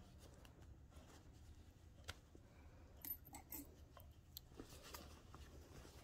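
Faint scattered small clicks and fabric handling noise from fingers working a zipper slider on the zipper tape of a pair of trousers.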